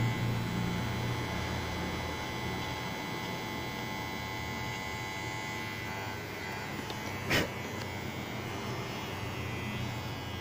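Electric hair clipper running with a steady buzz, with a single short click about seven seconds in.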